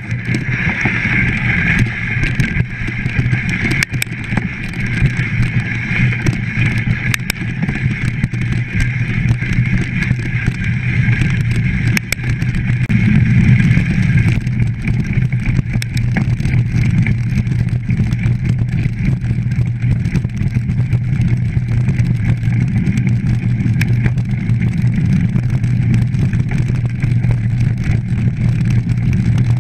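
A mountain bike ridden fast over a dirt trail, heard through an onboard action camera: steady wind rumble on the microphone, with the bike's rattles and scattered knocks over bumps. A higher hiss fades out about halfway through.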